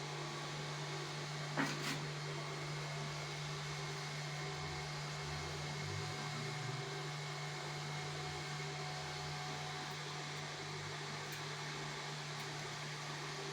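Cotton candy machine running with a steady motor hum and whirr, with one short click a little under two seconds in.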